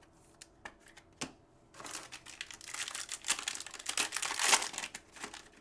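A few light clicks, then from about two seconds in a foil trading-card pack being torn open and its wrapper crinkled, the crinkling loudest near the end.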